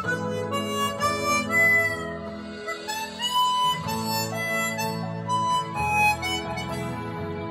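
Hohner 280-C 16-hole chromatic harmonica playing a melody of held notes, each changing about every half second to a second, with steady lower tones sounding beneath.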